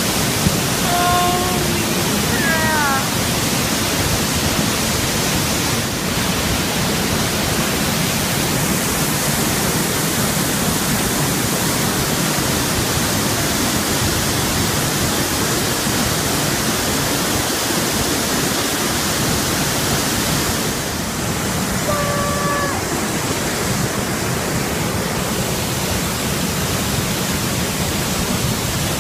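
Waterfall's loud, steady rush of falling water, heard from close behind the curtain of water.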